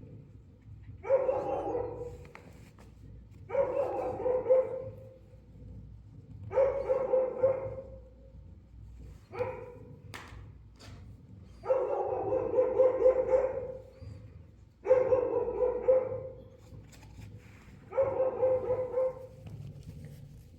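An animal calling over and over, about seven calls, each lasting a second or two at a steady pitch with a rough, wavering edge.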